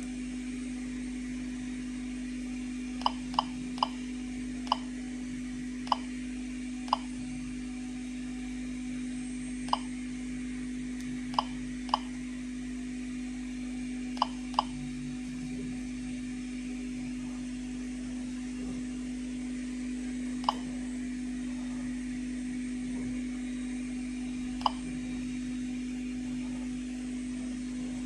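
Geiger-counter dosimeter clicking out single counts at natural background radiation: about a dozen short beep-clicks at irregular, random intervals, starting about three seconds in, over a steady low hum.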